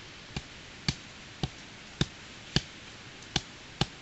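A steady series of sharp knocks, about two a second, over a low hiss.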